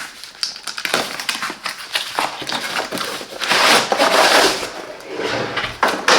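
Box being opened and its contents handled: scattered taps and clicks with rustling and scraping, the longest stretch of scraping between about three and a half and four and a half seconds in.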